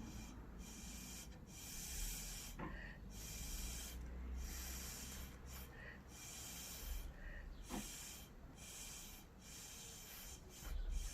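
A series of short puffs of breath blown onto wet acrylic pour paint to nudge the colours across the canvas, each a brief hiss, repeating about once a second, with a couple of faint clicks.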